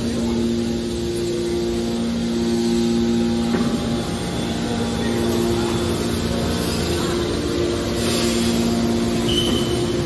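Hydraulic scrap metal baler's power unit running: electric motors driving hydraulic pumps, a steady machine hum with a pitched whine that drops out and comes back a few times.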